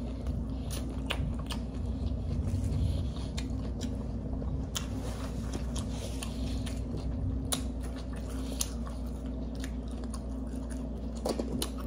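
Close-miked chewing of a sub sandwich and crunchy chips: wet mouth sounds with many short, sharp crunches and clicks, over a steady low hum.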